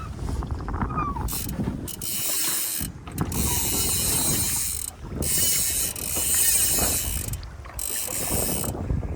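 Salmon fly reel buzzing in several bursts of a second or two each, with short breaks between, as line runs through it while a hooked salmon is played.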